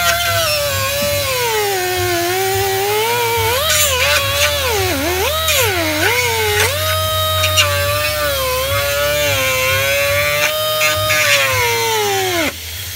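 Rotary tool (Dremel) cutting a piece out of the panel so the intake tube can pass through. It gives a high whine whose pitch sags as the cutter bites and climbs back as it eases off, wavering quickly around the middle. Near the end it winds down and stops.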